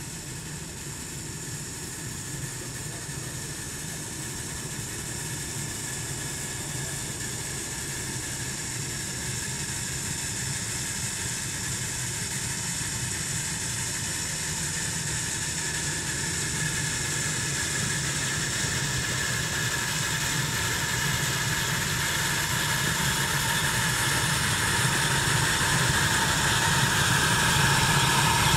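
Ride-on live steam scale locomotive working its way toward the listener, its running sound growing steadily louder as it approaches, with a higher tone that climbs slightly near the end.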